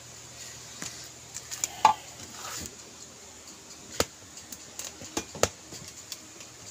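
A few scattered sharp clicks and knocks, the loudest about two seconds in, over a faint background.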